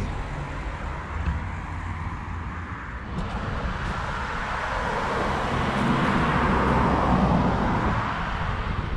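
A car driving past on the road. Its tyre and engine noise builds from about a third of the way in, is loudest around two-thirds through, then fades away.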